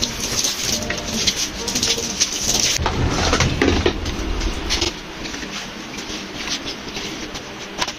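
Water from a garden hose splashing and pouring onto a soaked doormat, louder for the first five seconds, then quieter wet swishing as a flat mop scrubs the mat.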